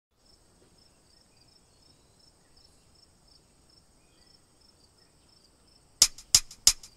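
Insects chirping: a faint, steady high-pitched trill with regular chirps about two or three times a second. Near the end, four sharp percussive clicks about a third of a second apart start a drum-machine beat.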